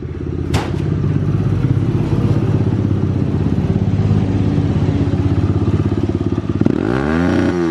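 Pit bike engine idling steadily as it warms up, with one sharp click about half a second in. Near the end the throttle is blipped once, and the engine note rises and falls back.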